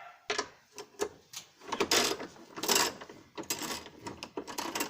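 A 13 mm wrench fitted onto a bolt on the washing machine and worked to loosen it: a run of sharp metallic clicks with scraping rasps, the loudest about two seconds in and again near three seconds.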